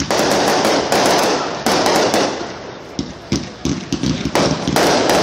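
Fireworks finale going off in rapid succession: dense crackling packed with sharp bangs and cracks, easing briefly about three seconds in before building again.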